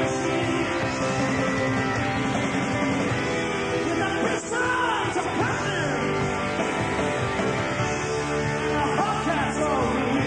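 Rock band playing live, with drums, guitar and singing.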